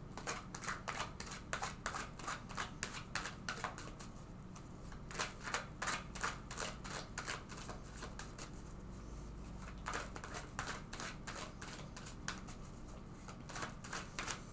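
Tarot cards being shuffled by hand, a run of quick papery flicks and riffles in clusters with short pauses, the deck shuffled several times over.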